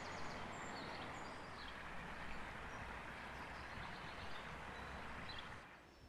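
Shallow stream running over pebbles, a steady rush of water, with a few brief high bird chirps above it. The water sound cuts off just before the end.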